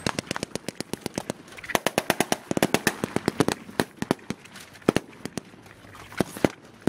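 Rapid, irregular small-arms gunfire: dozens of sharp shots in quick succession, some in close runs like machine-gun bursts, thinning out near the end.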